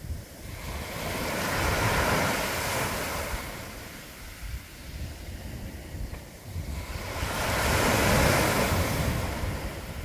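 Small sea waves breaking and washing up a coarse sand beach. Two waves swell and fade, one peaking about two seconds in and the other near the end.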